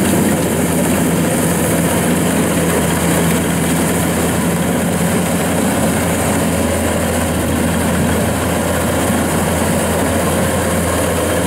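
Kubota DC-115 Plus combine harvester running steadily under load, its engine and threshing drum droning as it cuts and threshes lodged rice.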